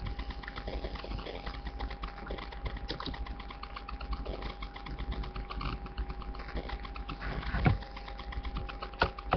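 Faint rapid clicking over a steady electrical hum and low buzz, with a louder short breathy sound about three-quarters of the way through and a sharp click near the end.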